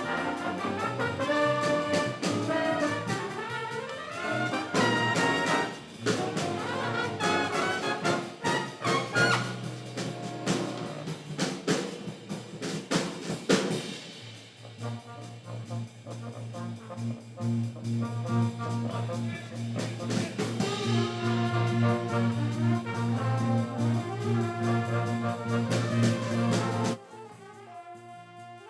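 Brass-led jazz music with trumpets and trombones. Sharp hits run through the first half; after that a held low note carries under the melody, and the music cuts off abruptly near the end.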